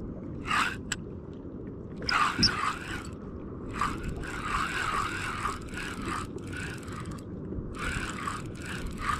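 Close handling noise: hands scraping and rustling against gear in several irregular bursts, over a steady low background rush.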